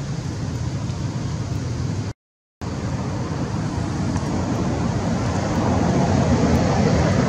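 Steady low rumbling background noise with no clear voice or distinct events; it drops out completely for about half a second around two seconds in and grows a little louder toward the end.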